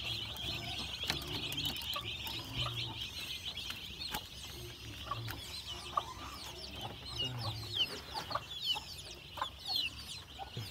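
A brood of young chicks peeping continuously in a dense, high chorus of short cheeps, with a few low grunts underneath.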